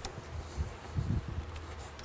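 Soft handling noises of a rubber upper radiator hose being twisted and worked off its radiator neck by gloved hands, with a low bump about a second in and a few faint clicks.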